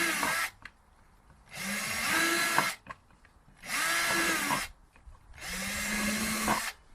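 Power drill boring holes in an empty plastic laundry container, run in short bursts of about a second, roughly every two seconds, the motor's pitch rising as each burst starts and falling as it is released.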